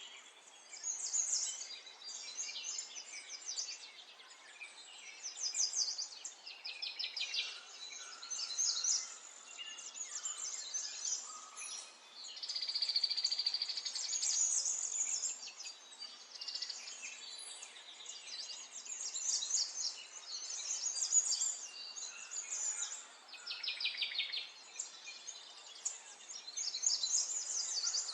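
Small songbirds chirping and trilling, with quick runs of high chirps every second or two and a longer, steadier trill about halfway through.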